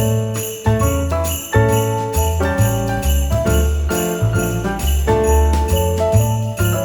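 Background music: an upbeat Christmas-style tune with sleigh bells shaken on a steady beat over chords and a bass line.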